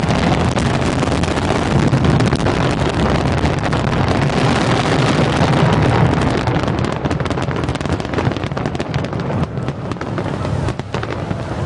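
Aerial fireworks crackling densely, with many small bursts running together into one continuous crackle; after about seven seconds it thins into more separate crackles.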